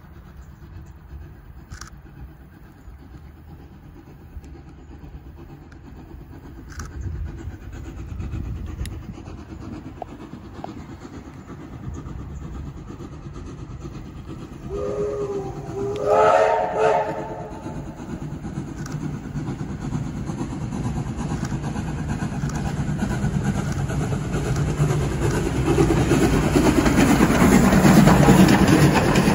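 Steam locomotive 3001 pulling away with its carriages: its whistle sounds about halfway through, then its exhaust and wheels grow steadily louder as the train approaches and passes, loudest near the end.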